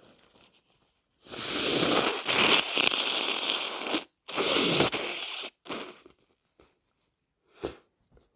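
A person with a head cold blowing their nose hard: one long blow of about three seconds, a second shorter blow, then three brief, fainter puffs.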